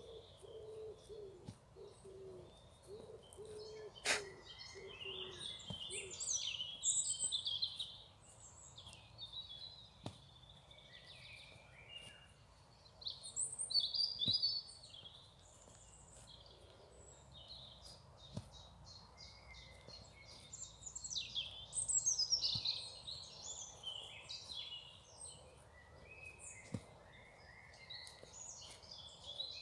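Songbirds singing in the trees, a steady stream of high chirps and trills, with louder phrases now and then, and a few faint knocks.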